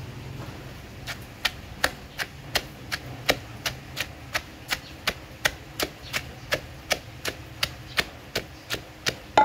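Wooden pestle pounding chopped yard-long beans and chilies in a mortar, a steady beat of about three strikes a second that starts about a second in.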